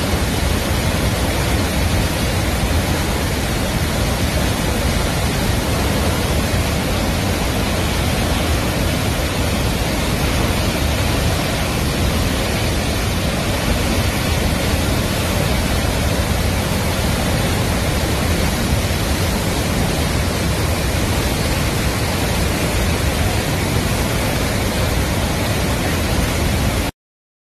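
Murchison Falls on the Victoria Nile: a loud, steady rush of falling water that cuts off abruptly near the end.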